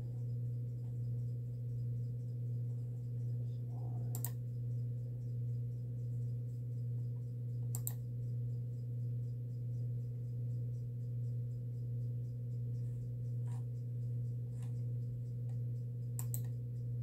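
Steady low electrical hum, with a few sharp single clicks a few seconds apart, like computer mouse or keyboard clicks.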